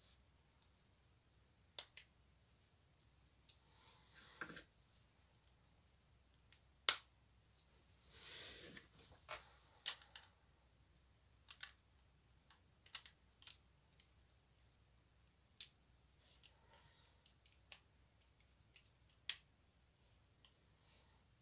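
LEGO plastic bricks clicking and clattering as they are handled, with a dozen or so sharp clicks at irregular intervals and a few short stretches of rustling; the loudest click comes about seven seconds in.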